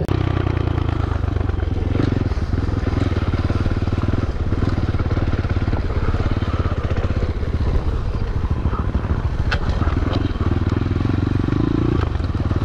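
A 125 cc single-cylinder four-stroke pit bike engine running steadily under way, heard close up from the rider's chest.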